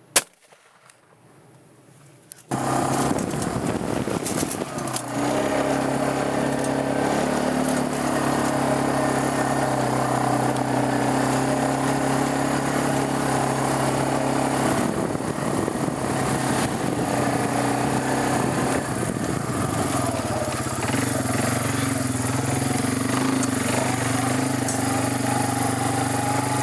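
A single gunshot right at the start. From about two and a half seconds in, a small motor vehicle's engine runs steadily under load, its pitch wavering a little, as it drives across the field.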